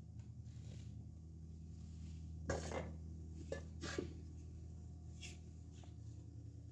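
A wooden cutting board and a metal loaf pan set down on a stone countertop: light knocks and a scrape, with a cluster about two and a half seconds in, another just before four seconds, and a last small knock a little after five seconds.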